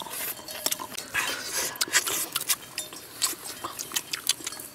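Close-up eating sounds: wet chewing and lip smacks, with irregular clicks and crackles of grilled fish being torn apart by hand.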